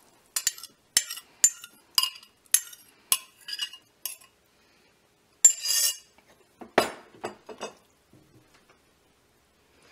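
A metal spoon clinks and scrapes against the rim of a glass measuring cup, about two sharp clinks a second, as chopped clams are scraped out into a soup pot. After a brief pause there is a scrape, then a few duller knocks of stirring in the pot.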